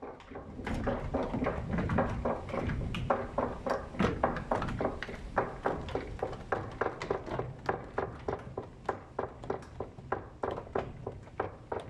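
Wooden gearing of a water mill turning: the cogs of a large wooden wheel mesh with a smaller pinion, clacking steadily about three times a second over a low rumble.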